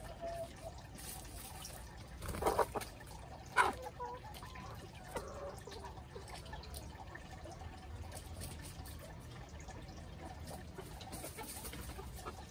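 A flock of chickens clucking a few short times, mostly between about two and five seconds in, over a faint steady background noise.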